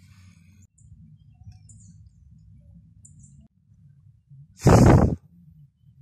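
Faint, short, high bird chirps a second or so apart over a low rumble of outdoor ambience. A little before the end comes a single loud burst of noise lasting about half a second.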